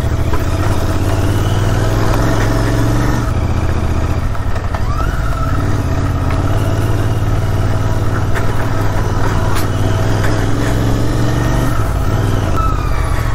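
Royal Enfield Interceptor 650's parallel-twin engine running steadily while the motorcycle is ridden along a rough mountain road.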